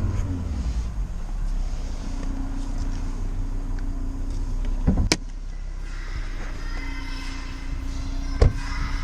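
Audi RS3's 2.5-litre turbocharged five-cylinder engine idling steadily after a rev. Two sharp clicks come about five and eight and a half seconds in.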